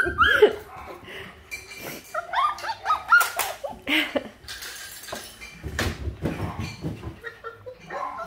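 Labradoodle puppies whining and yipping at play, short high cries that bend up and down in pitch, scattered through, with sharp knocks and thumps mixed in.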